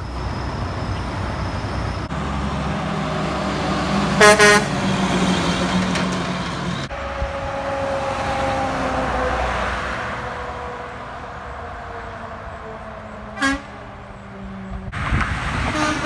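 Semi-trucks passing with engine and tyre noise, and a short truck horn blast about four seconds in. A brief toot comes about thirteen and a half seconds in, and another horn starts near the end.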